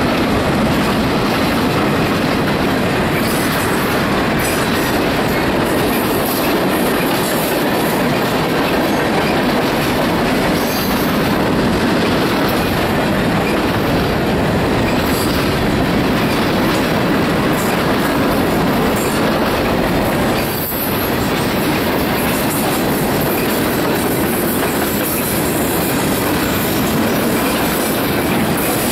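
Norfolk Southern freight train's cars rolling past close by: a loud, steady rumble of steel wheels on the rails, with brief high wheel squeals here and there.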